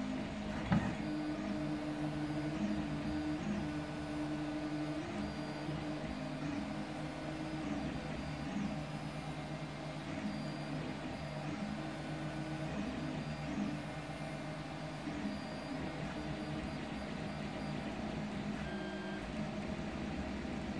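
Stepper motors of a home-built CoreXY 3D printer whining while it prints: held tones that jump to a new pitch with each move, over a steady fan hum. One sharp click about a second in.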